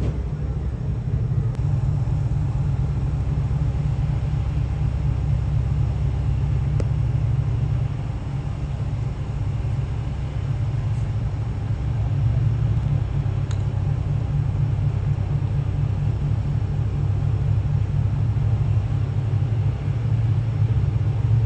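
Low, steady rumble of a large motor yacht's engines running as it manoeuvres stern-first into its berth, swelling slightly now and then.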